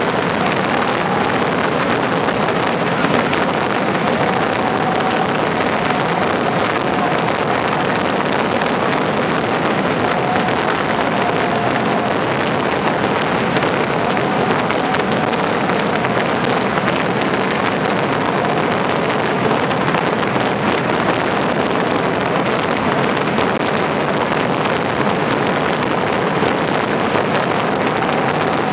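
A mass discharge of rocket fireworks (voladores) bursting overhead without pause, the countless bangs merging into one dense, continuous crackle that stays loud throughout.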